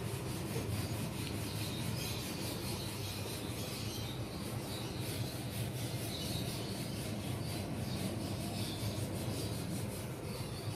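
Steady low background hum with a faint, even rubbing noise over it; no speech.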